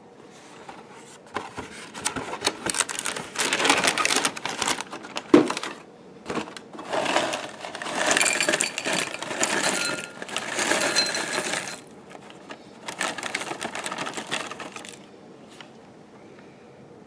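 Cinnamon Toast Crunch cereal poured from its box into a bowl, the squares rattling and clattering onto the bowl in three long pours, with one sharper clack in the first pour.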